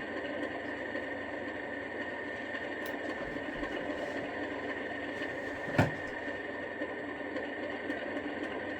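Recorded Class 37 diesel engine idling steadily, played through the small speaker of an OO gauge model locomotive's sound decoder. A single sharp click comes about six seconds in.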